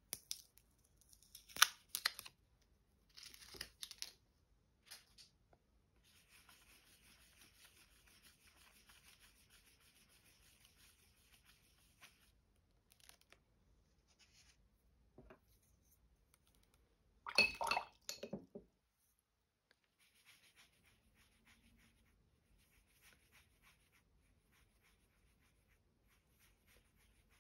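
Paper wrapper peeled and torn off a handmade soft pastel stick in a few short rips, then the soft pastel rubbed across sketchbook paper in a faint, steady scratching. Later comes one brief louder rustle, then faint light strokes of a wet paintbrush working over the pastel swatch.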